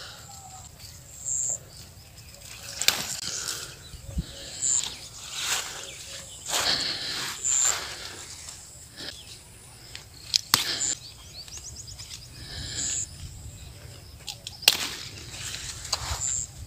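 Okra plants rustling and snapping as their leaves and stems are pushed aside and pods are picked by hand, in short irregular bursts. A short high chirp repeats about every three seconds.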